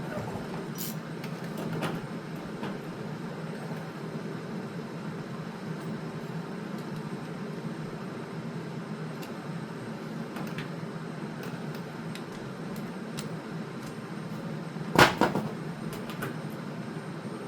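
Tool-and-part handling noises while fitting a car's fuel tank: scattered light clicks over a steady low hum, then one loud knock about 15 seconds in, followed by a couple of lighter knocks.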